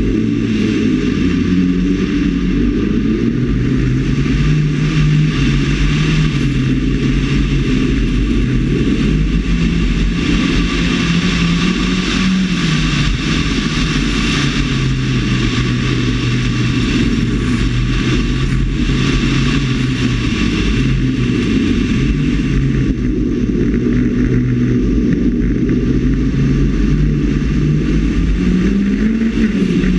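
Rally car engine running hard under load. Its note rises and falls with throttle and gear changes, over a steady rush of wind and tyre noise at the roof-mounted microphone.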